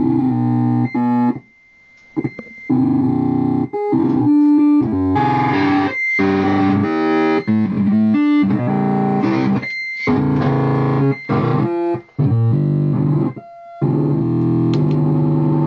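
Electronic synthesizer playing a repeating pattern of pitched notes from a grid-pad controller, the notes changing in short runs and cutting out in several brief gaps. Near the end a hiss of noise rises under the notes.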